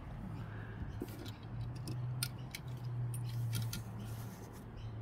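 Small sharp clicks and taps as a die-cast model car is handled and set down on a display base, about seven ticks spread over a few seconds, over a steady low hum.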